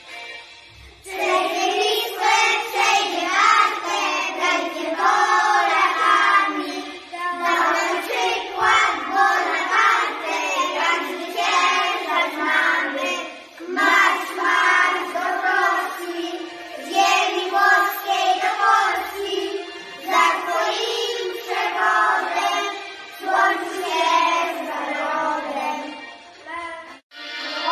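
A group of young schoolchildren singing a Polish patriotic song together in unison. The singing begins about a second in, goes in phrases with short breaths between them, and stops abruptly just before the end.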